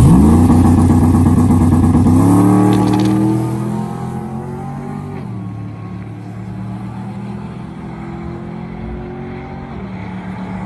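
Chevrolet Trailblazer drag truck launching at full throttle with its rear tyres spinning. The engine pitch climbs sharply, drops at a gear change about two seconds in and climbs again, then fades as the truck pulls away down the track.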